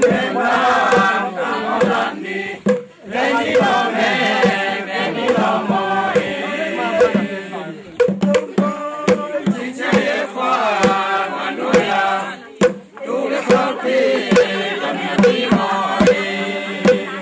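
A group of men and women singing a traditional Zomi chant-like song together, with a barrel-shaped hand drum beating a steady rhythm under the voices.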